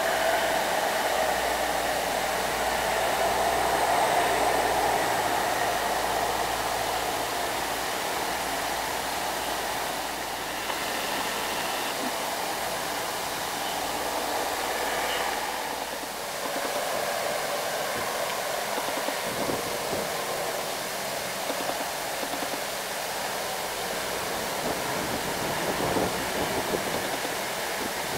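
Heavily loaded light trucks' diesel engines running as they pass close by, with a steady hiss of road and tyre noise. The engine rumble is strongest in the first few seconds and has faded by about halfway through, leaving the hiss.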